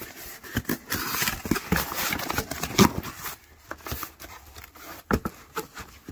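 A box being opened and its packaging handled: irregular rustling and scraping with many small clicks and knocks, the sharpest about three seconds in and again about five seconds in.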